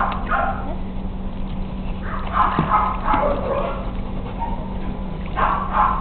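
A dog barking in short runs: at the start, again from about two to three seconds in, and near the end, over a steady low hum.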